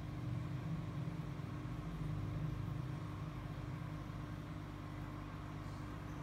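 Steady low mechanical rumble with a faint constant hum, like an engine running; no bird calls.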